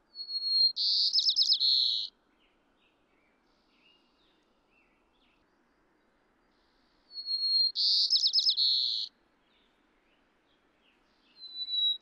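White-crowned sparrow singing. Two full songs about seven seconds apart, each a clear held whistle followed by a rapid run of notes, and a third begins near the end. Underneath is only a faint low hiss, the plane noise having been filtered out of the recording.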